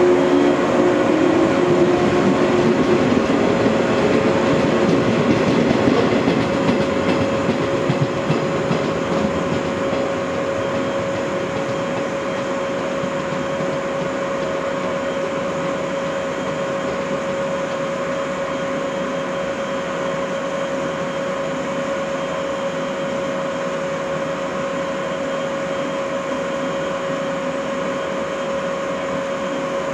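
Yellow electric train, Okayama depot set A06, pulling out and running away along the track. Its running noise is loud at first and fades over about ten seconds, leaving a steady hum.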